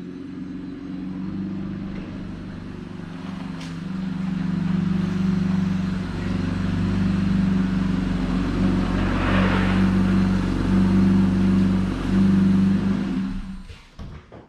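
A vehicle engine running at a steady speed, getting louder about four seconds in and fading out near the end.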